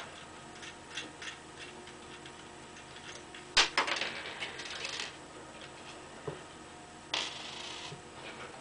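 Scattered light clicks, then a sharp click followed by a rustle lasting a second or so about three and a half seconds in, and another short rustle near the end.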